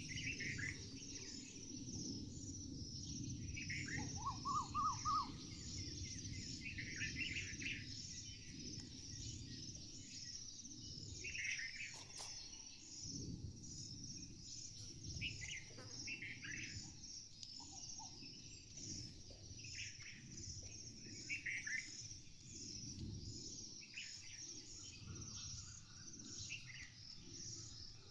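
Wild birds giving short calls every couple of seconds, with a brief warbled phrase about four seconds in, over a steady high-pitched insect chorus and a low outdoor rumble.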